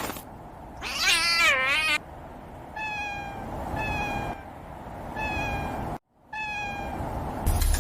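Kitten mewing: one longer wavering cry, then four short, slightly falling mews about a second apart, over a steady background hiss.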